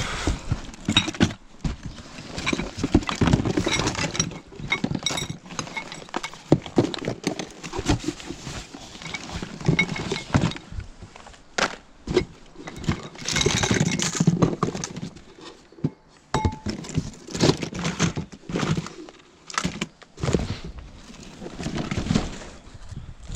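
Rummaging through discarded household rubbish: bags and boxes rustling and crinkling, with irregular knocks, thunks and clinks as items are moved and dropped.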